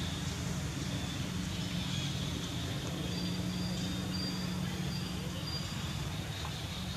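Steady low engine-like hum under even outdoor background noise. A faint, thin high tone comes and goes near the middle.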